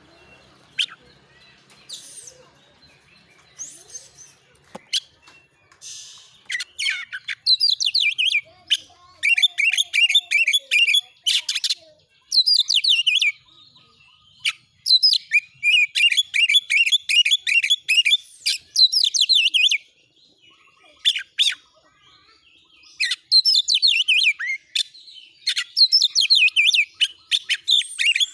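Oriental magpie-robin (kacer) singing in agitation: a few scattered calls at first, then from about seven seconds in, loud bursts of rapid repeated high notes, the hard 'nembak' song of a bird worked up to fight.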